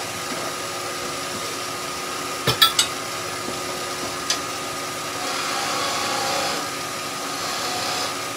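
Wood lathe running with a steady motor hum. A few sharp clicks of tools knocking together come about two and a half seconds in. From about five seconds in there is the light sound of a skew chisel cutting the spinning wood.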